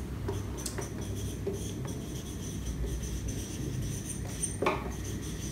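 Felt-tip marker writing on a whiteboard: light scratchy strokes over a low room hum, with a sharper click near the end.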